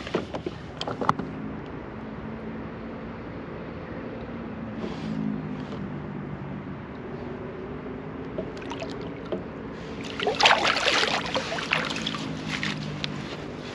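Water lapping and sloshing beside a kayak as a large striped bass is held in the water to revive it, with a louder burst of splashing about ten seconds in.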